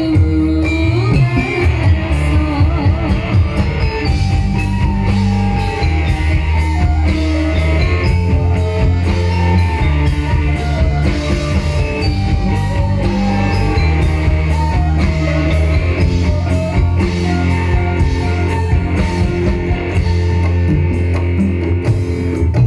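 Amplified live ensemble music: Javanese gamelan metallophones, violin and a drum kit playing over a steady bass, with singing on top and a regular beat.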